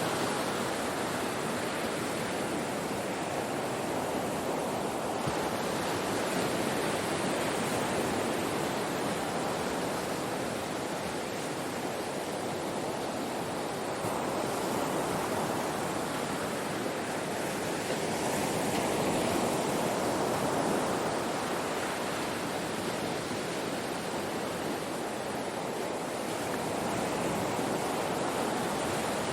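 Ocean waves breaking on a shore: a continuous wash of surf that slowly swells and eases, loudest a little past the middle.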